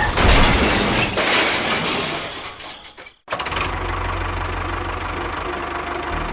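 Engine running, noisy and uneven at first; after an abrupt cut about three seconds in, a steady low engine hum.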